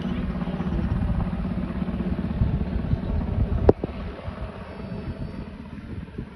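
Black Hawk helicopter flying overhead carrying a slung airplane: a steady low rotor and engine noise with wind buffeting the microphone. A sharp knock comes a little past halfway, after which the sound is quieter.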